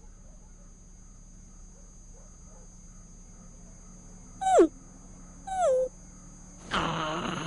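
A dog whining twice: two short, loud cries that fall in pitch, about a second apart. A louder, rough, noisy sound starts near the end.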